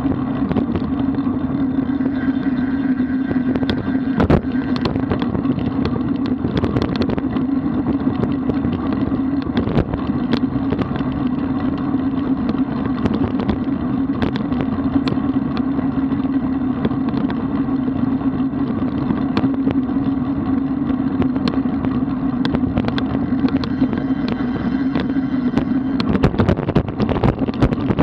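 Road bicycle riding at speed: steady wind rushing over the microphone and tyre noise from the road, with a constant low hum and frequent small clicks and rattles.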